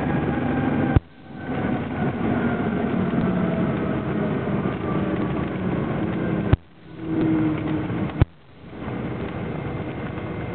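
Engines and propellers of a small commuter plane running at low power during the landing rollout, with a droning tone that slowly falls in pitch as the plane slows. Four sharp clicks break in, each followed by a brief drop in the sound.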